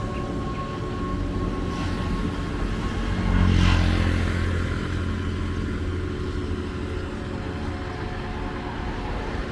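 Road traffic running past, with one vehicle going by close and louder about a third of the way in.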